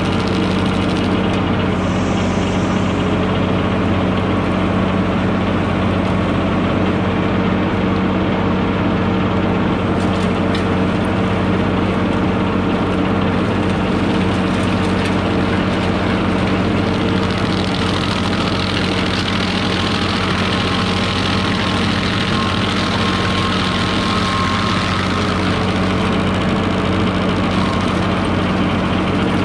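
A tractor engine runs steadily, driving a PTO stump grinder (Mech Maxx TSG61) whose toothed cutting wheel grinds into a stump. A harsher grinding hiss comes in about two-thirds of the way through.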